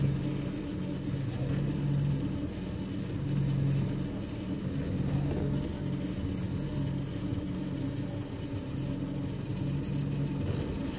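Audi A6 C6 hydraulic power steering making a steady low hum over the running engine, swelling and fading at intervals. This is the strange noise that the owner hears from the power steering.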